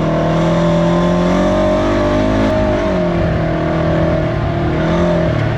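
2019 Polaris RZR 900 side-by-side's twin-cylinder engine running while driving over a bumpy dirt trail, its pitch climbing about two seconds in, dropping back, then climbing again as the throttle is worked.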